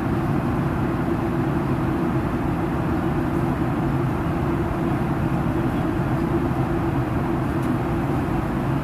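Steady cabin noise of an airliner in flight: a constant low drone of engine and airflow noise that does not change.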